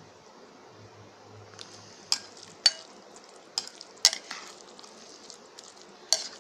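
Plastic spoon stirring oily grated raw mango in a glass bowl, with about five sharp clinks of the spoon against the glass from about two seconds in.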